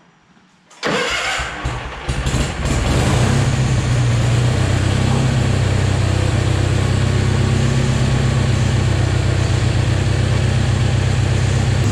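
Bolens garden tractor's engine cranking and catching about a second in, then settling into a loud, steady run.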